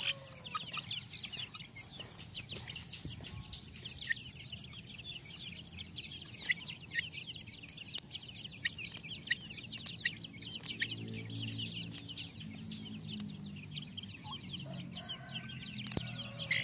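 Young chickens peeping and clucking all through, with a few sharp snips of scissors cutting the chick's wing feathers, about halfway and near the end.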